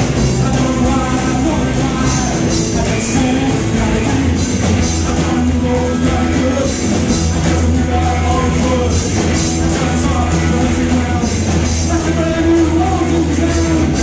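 Live rock band playing loud: electric guitars, bass guitar and a drum kit.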